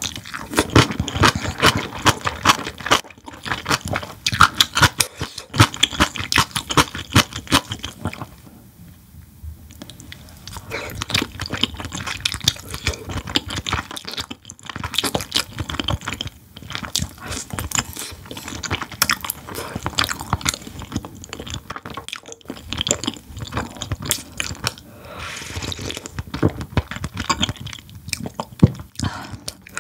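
Close-miked chewing and crunching of kimchi and whelk meat, with wet mouth sounds and a brief lull about a third of the way in.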